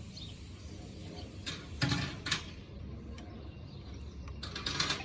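Hand tools working on engine parts: a few short metallic scrapes and clicks, grouped about a second and a half to two and a half seconds in and again near the end.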